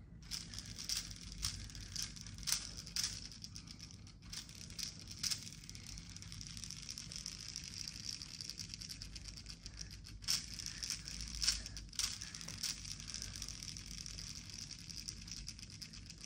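A small plastic spinner toy whirring as it spins in the hand, a steady high whir. Scattered clicks and taps come from fingers handling and flicking it.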